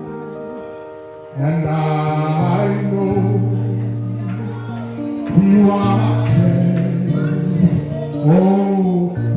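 Gospel singing with instrumental accompaniment: held chords under a sung line that slides between notes. The music fades low at first, then swells back in about a second and a half in.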